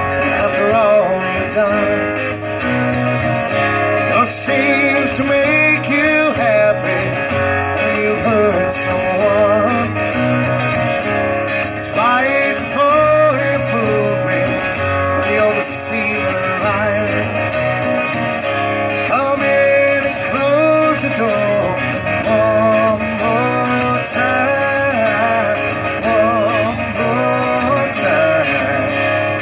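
Live music from a solo performer: a guitar played steadily with a wavering sung melody over it.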